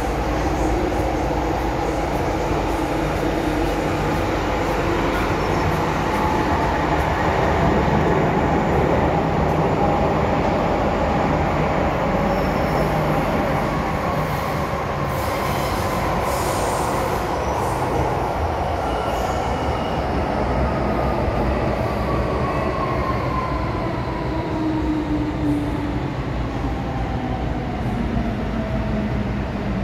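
MTR M-Train electric multiple unit heard from inside the car, running through a tunnel with steady wheel and track noise. In the second half the motor whine falls steadily in pitch as the train slows into a station.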